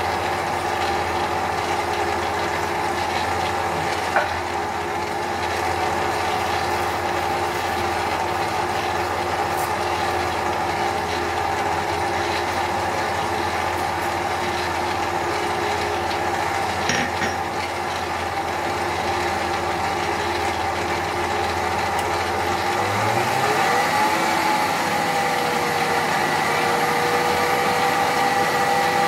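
Electric stand mixer running steadily, its wire whisk beating eggs and sugar in a stainless-steel bowl. The motor's hum changes pitch about three-quarters of the way through and runs on a little louder.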